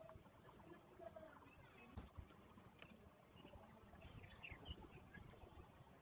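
Near silence, with a faint, steady, high-pitched whine throughout and a single sharp click about two seconds in.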